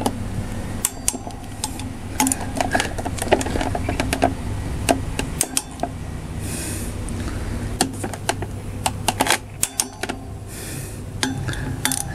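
Ratchet of a quarter-inch-drive click-type torque wrench clicking in short runs of quick ticks as the brake disc bolts on a motorcycle front wheel hub are tightened to 20 Nm.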